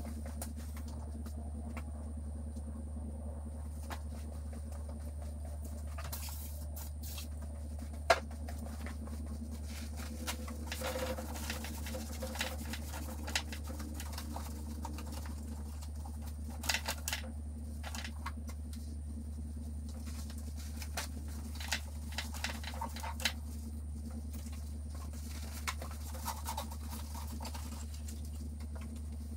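Shop towel wiping and scrubbing grime off engine-bay parts: scattered rustling and scratchy rubbing with occasional small knocks, one sharp click about eight seconds in. A steady low hum runs underneath.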